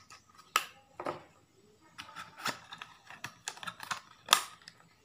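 Irregular sharp clicks and taps of hard plastic being handled against a tabletop, as the clear plastic lure box is picked up and moved. The loudest click comes about four seconds in.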